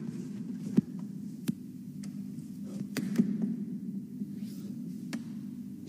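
A few sharp knocks and clicks at a panelled wooden door, the loudest about a second in, over a steady low hum.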